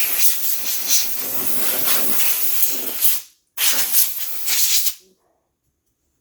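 Compressed air blowing dust off a laptop keyboard: a long hissing blast that stops about three seconds in, then one shorter blast lasting about a second and a half.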